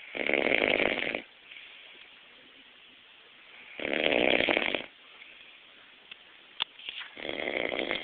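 A man snoring in his sleep: three loud snores, each about a second long, coming roughly every three and a half seconds with quiet breathing between.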